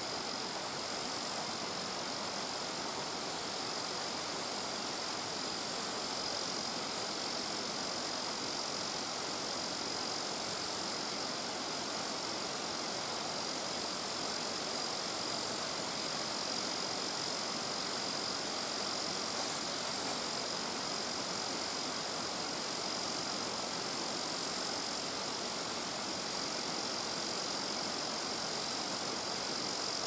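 Steady rush of water spilling over a small stone check dam on a mountain stream, with a constant thin high-pitched whine above it.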